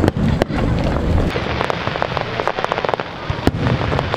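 Aerial fireworks bursting: sharp bangs over a low rumble for the first second or so, then dense rapid crackling of many small pops, with another loud bang about three and a half seconds in.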